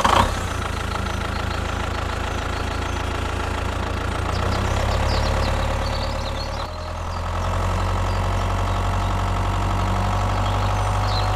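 Engine running steadily at idle with a low, even hum, which dips and resumes about two-thirds of the way through.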